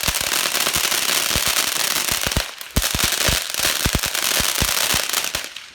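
Consumer fireworks going off at close range: a dense, loud crackle with many rapid bangs. There is a brief lull about two and a half seconds in, then more bangs, dying away near the end.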